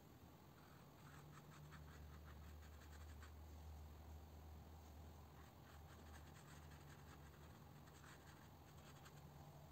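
Faint scratching of a watercolour brush on paper in short, quick strokes, over a low steady hum.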